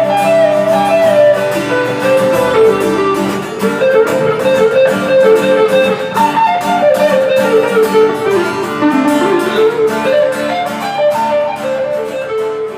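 Guitar playing the song's instrumental ending after the last sung line, with picked single-note melody lines over sustained chords.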